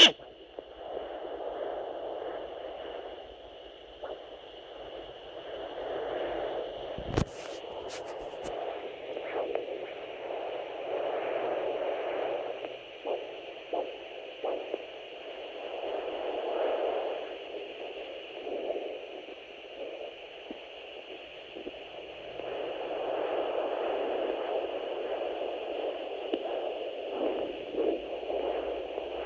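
Handheld fetal Doppler monitor's speaker giving a wind-like whooshing of placental blood flow that swells and fades every few seconds over a steady hiss. A sharp click about seven seconds in.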